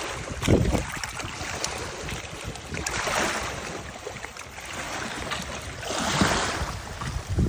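Wind-driven waves washing and splashing, swelling about three seconds in and again near six seconds, with gusts buffeting the microphone in short low rumbles.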